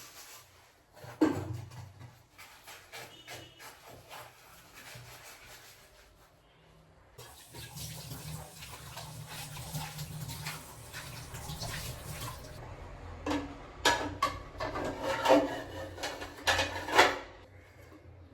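Water running from a tap into a sink for several seconds, followed by a run of clinks and knocks near the end, with a few scattered knocks earlier.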